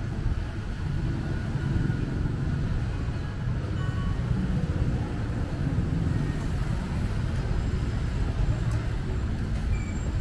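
Street traffic: a steady low rumble of passing road vehicles.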